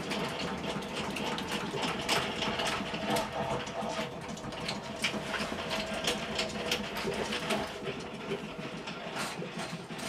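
Honey extractor running, a steady mechanical whirr with a gear-like rattle, with scattered clicks and knocks over it.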